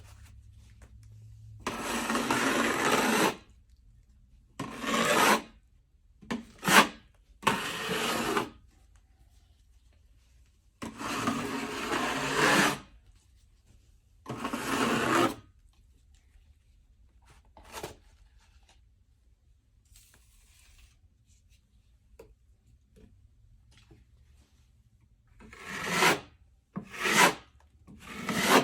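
A drywall knife scraping across the wall as patching compound is spread and feathered over the taped joints, in strokes of one to two seconds with pauses between, several short strokes close together near the end.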